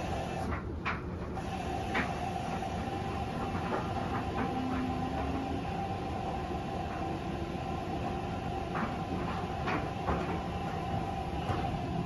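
Front-loading washing machine running, its drum turning the laundry: a steady rumble and motor whine, with scattered light clicks and knocks from the tumbling load.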